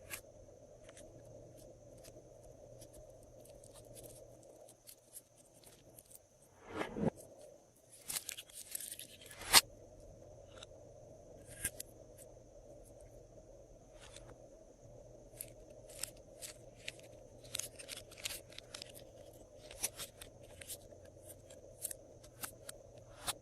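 Glossy slime being mixed and stretched by hand, giving scattered sticky clicks and pops, with a denser crackling stretch about eight seconds in.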